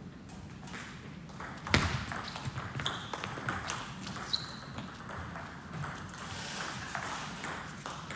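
Table tennis ball clicking back and forth off the rubber paddles and the table during a rally, with a sharp, loud hit a little under two seconds in. Two brief high squeaks a few seconds in, from sports shoes on the wooden floor.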